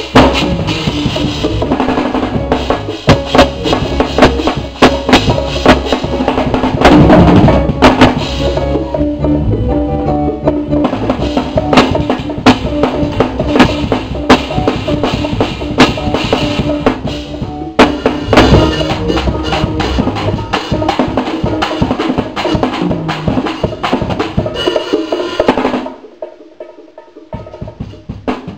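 Drum kit played along with a band: bass drum, snare and cymbal hits over sustained pitched notes from other instruments. About 26 seconds in the full band drops out and only quieter, sparser hits remain.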